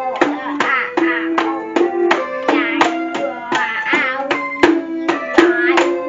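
Children's toy cat keyboard playing a quick run of electronic notes, about three a second, some held steady and several wavering up and down in pitch.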